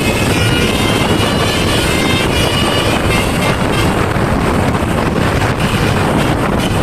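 Loud, steady traffic noise from heavy road vehicles, with wind buffeting the microphone.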